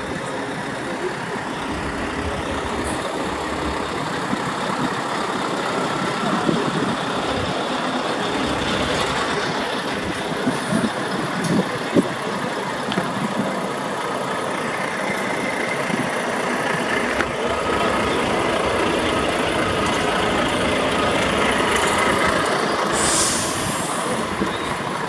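Heavy trucks' diesel engines running at idle, a steady low rumble, with a short hiss of an air brake near the end.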